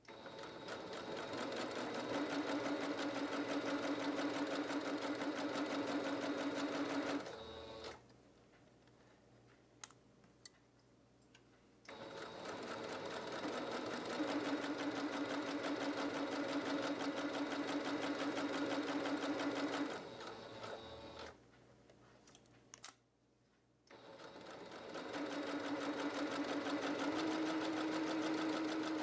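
Electric sewing machine stitching a straight seam in three runs, with a fast, even stitch rhythm over its motor hum, stopping twice for a few seconds between runs with a few faint clicks in the pauses. Near the end the hum rises slightly as it speeds up.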